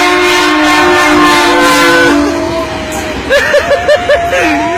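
A loud multi-tone horn holding a chord for about two and a half seconds. Near the end a fast warbling horn pattern starts, its pitch swooping up and down several times a second over a steady note.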